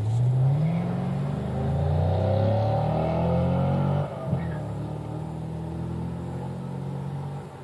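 An engine running: it revs up in pitch at the start, holds, then drops back to a lower, steady run about four seconds in.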